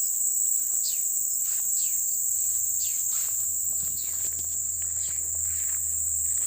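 A steady, high-pitched insect trill from the bushes, with short falling chirps repeating about once a second over it.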